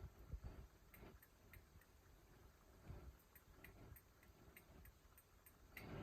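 Hampton Bay Huntington II 52-inch ceiling fan running on high speed, heard faintly as a light, regular tick about three times a second over a soft low rumble.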